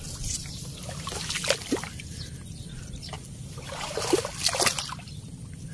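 Water sloshing and trickling as someone wades slowly through shallow water, with a few small splashes and drips about a second and a half in and again around four seconds in.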